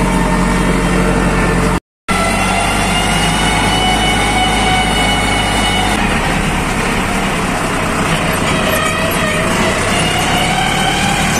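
Farm tractor's diesel engine running under way, a loud steady drone. The sound drops out completely for a moment about two seconds in; about six seconds in the engine note shifts, and near the end its pitch rises as the engine speeds up.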